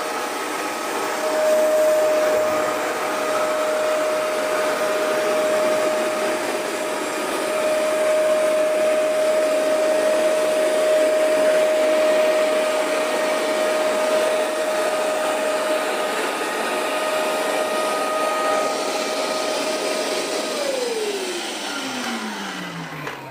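Hoover Max Extract 77 carpet deep cleaner running, a steady motor whine over a rush of suction. Near the end it is switched off and the whine falls steadily in pitch as the motor spins down.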